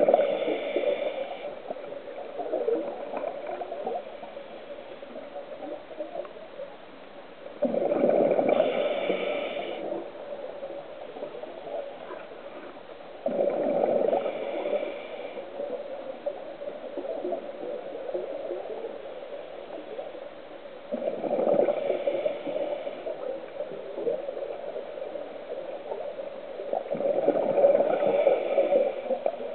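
Scuba diver breathing through a regulator underwater: exhaled bubbles gurgle out in loud bursts about every six to seven seconds, five times, with quieter muffled noise between them.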